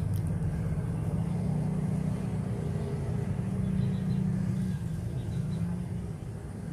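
Low, steady engine rumble that swells about four seconds in and eases off near the end.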